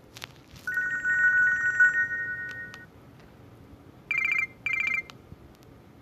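Nokia 150 phone's loudspeaker playing short ringtone samples from the Nokia 6700 Slide. A warbling electronic trill lasts about two seconds, then a brief two-pulse beep comes about four seconds in, with a few faint clicks in between.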